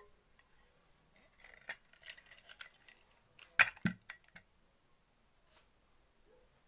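Metal pressure cooker lid being twisted open and lifted off: light metallic clinks and scrapes, then a sharp metal clank about three and a half seconds in, followed by a duller knock.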